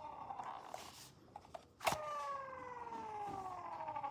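Novelty computer mouse playing a fire-truck siren sound: a falling siren tone fades out about a second in, then a click near the middle sets off another tone that slides slowly down in pitch.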